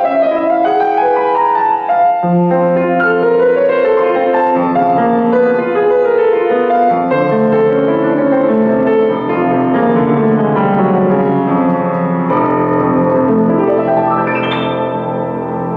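Grand piano played solo: a classical piece in many overlapping notes, ending in a fast upward run near the end.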